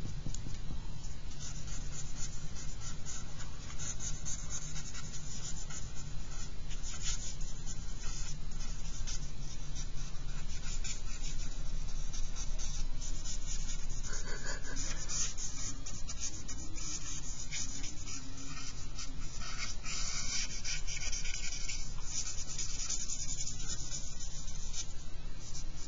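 Charcoal pencil scratching across paper in many short, quick strokes over a steady low hum.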